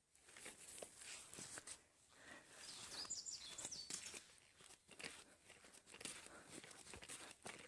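Faint footsteps scuffing and crunching on a road. About two and a half seconds in, a higurashi (evening cicada) calls, a short run of high notes stepping down in pitch.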